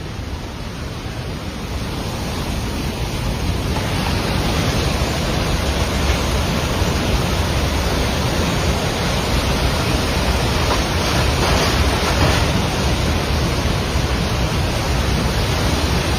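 Floodwater torrent rushing: a steady loud noise with a deep rumble, growing louder over the first few seconds and then holding.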